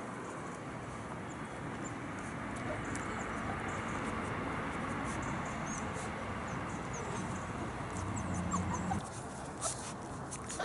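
German Shepherd puppies giving a few faint short squeaks and whimpers over a steady outdoor hiss.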